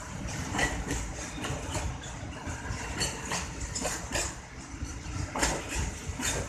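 Train moving at low speed: a low diesel engine rumble under a run of sharp, irregular clacks from the wheels.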